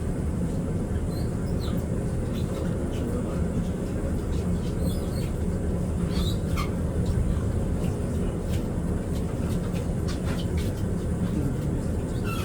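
Steady low rumble of ambience on the deck of a cruise ship in a canal lock, with a few faint short high chirps scattered through.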